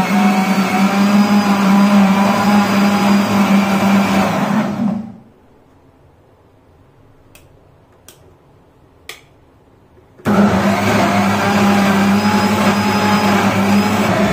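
Wonder Maxie Plus mixer grinder running loud with a steady hum, blending bananas, flour and water into a thick batter. It stops about five seconds in. A few short clicks come in the pause, then the motor starts again about ten seconds in.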